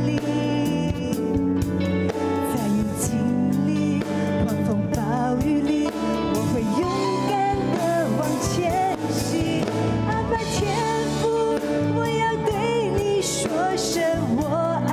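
A woman singing a Mandarin Christian worship song into a microphone, with live band accompaniment. The melody moves in long held notes over steady chords.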